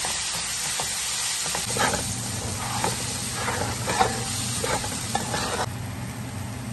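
Sliced red onions, ginger and garlic sizzling in hot oil in a metal pan, with a spatula stirring and scraping through them several times. The sizzle turns softer about five and a half seconds in.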